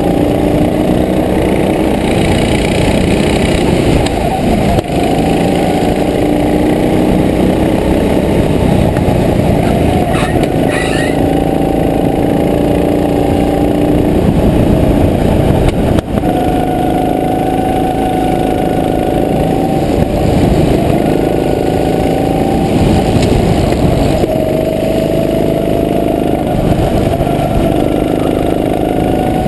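Go-kart engine running hard, heard close up from on board the kart. Its pitch rises as the kart accelerates and drops when it eases off for corners, several times over.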